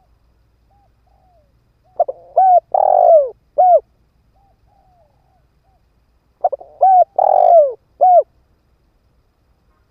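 Spotted dove decoy bird cooing: two loud phrases of several curved coo notes, about four seconds apart, with soft short notes between them. It is the decoy's calling meant to provoke wild doves to answer and come in.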